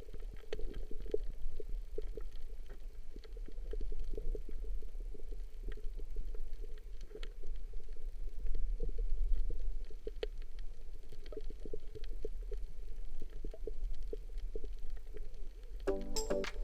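Underwater sound picked up by a diving camera: a steady low rumble of moving water with many small scattered crackling clicks.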